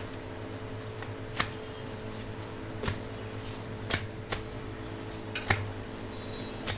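Palms slapping and crushing a hot, layered wheat parotta on a griddle to loosen and open its layers: sharp slaps every second or so, some in quick pairs, over a steady hum.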